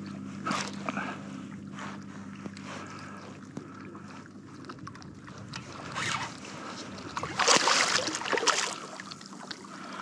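Water splashing and lapping at the side of a kayak while a hooked fish is fought on a bent rod, with louder splashing from about seven to nine seconds in. A steady low hum runs underneath.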